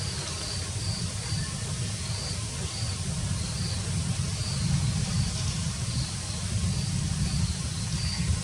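Short, high chirps from a small bird, repeated at irregular intervals about once or twice a second, over a steady low rumble.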